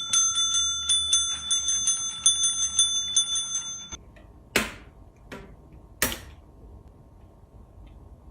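A small metal bell rung rapidly and over and over, about three or four strikes a second, with a bright high ring that stops abruptly about four seconds in. Three sharp clicks follow.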